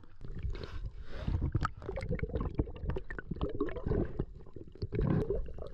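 Sea water sloshing and gurgling around a camera at the surface and underwater, with many short, sharp clicks and a low rumble.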